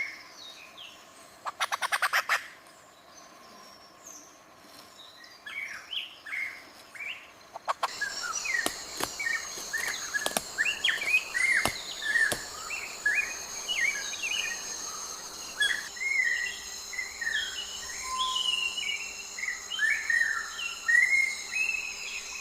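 Several birds chirping and calling in short, quick notes. From about a third of the way in, a steady high insect drone runs underneath, and there is a brief rapid rattle about two seconds in.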